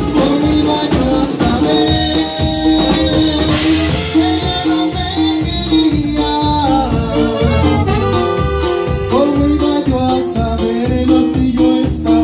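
A live norteño band playing, with button accordion, acoustic guitar, electric bass and drums over a steady beat.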